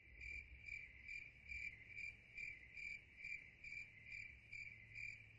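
Crickets chirping faintly: a steady high trill that pulses evenly, about two and a half chirps a second.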